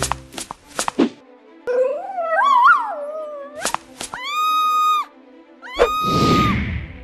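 Cartoon sound effects over background music: a few sharp clicks, then a wavering dog-like howl, then a high, held scream twice, the second trailing off into a whoosh.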